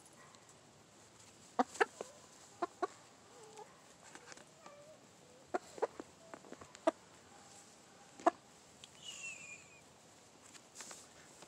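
Barred Rock hen making soft, faint clucks while held in a lap, with sharp clicks in small clusters from scissors snipping her wing feathers.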